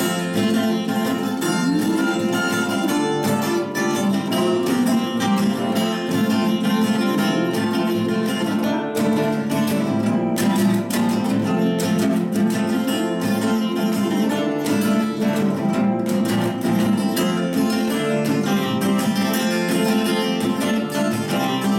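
Two acoustic guitars playing an instrumental duet, with no singing: a nylon-string classical guitar and a steel-string acoustic guitar with a capo, picked in a steady stream of quick notes.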